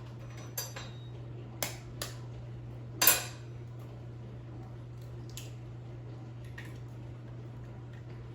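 Four short knocks and clinks of kitchenware against a small frying pan, the loudest about three seconds in, over a steady low hum.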